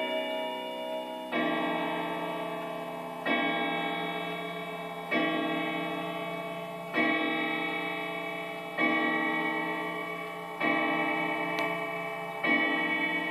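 Longcase clock's custom chime rods striking the hour. The last notes of the chime tune fade, then about a second in a slow run of single, identical strokes begins, roughly two seconds apart, each one ringing out and dying away before the next.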